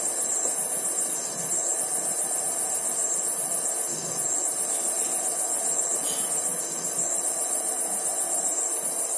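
Brother MFC-J525W inkjet printer running its service-mode ink purge, pumping ink through the empty supply tubes: a steady mechanical whirr. A faint high swell repeats about every three seconds.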